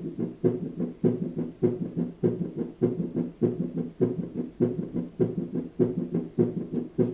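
Recording of a pathological heartbeat: a fast, regular series of low thuds, about 100 beats a minute.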